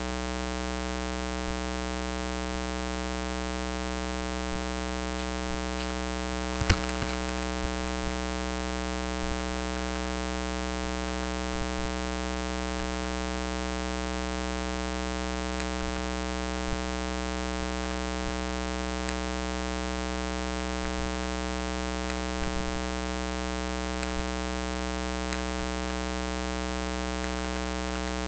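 Steady electrical mains hum with a buzzy stack of overtones, unchanging throughout. There is one sharp click about seven seconds in and a few faint ticks.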